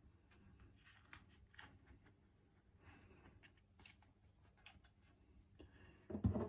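Faint scattered clicks and scrapes of a Festool 3.1 Ah battery's plastic shell halves and cell pack being handled and pulled apart, louder near the end.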